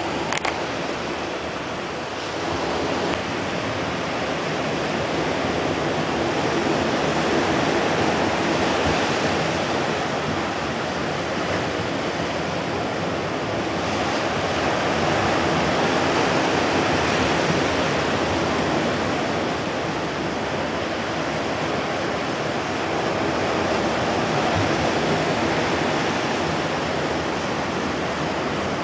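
Ocean surf: small waves breaking and washing up on a beach, a steady rushing that swells and eases about every eight or nine seconds.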